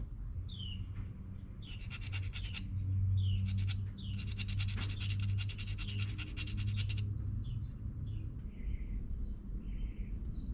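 A small songbird calling: short falling chirps and several rapid trills, the longest lasting about three seconds, over a steady low hum.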